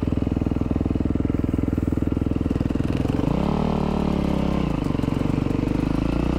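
2012 Yamaha WR450F dirt bike's single-cylinder four-stroke engine running at low revs with an even, steady pulse, then revving up about three seconds in, easing off, and picking up again near the end as the bike pulls away.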